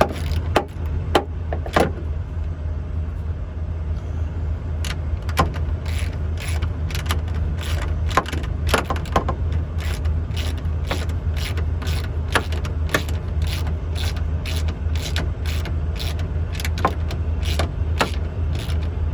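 A small wrench clicking as mirror-mount nuts are tightened, a sharp click about twice a second from about five seconds in, with a few scattered clicks before. Under it runs a steady low engine hum.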